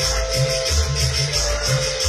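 Loud Latin dance music played over a sonidero's sound system, with a heavy bass beat and a shaker or maraca-like rattle keeping time.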